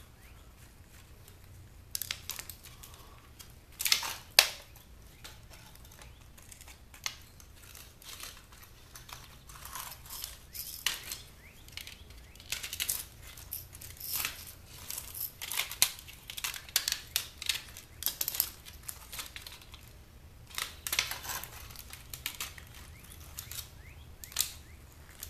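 Plastic casing and circuit boards of a portable DVD player being pried apart and handled: irregular clicks, snaps and scrapes of plastic, with the sharpest cracks about four seconds in.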